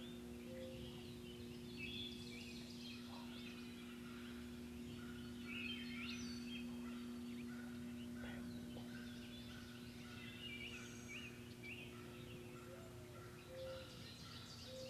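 Wild turkeys calling in the field, a gobbler's gobble among them, over steady songbird chirping and a low steady hum.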